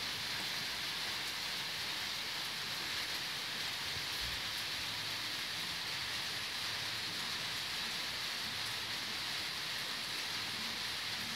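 Steady rain falling, an even hiss with no change.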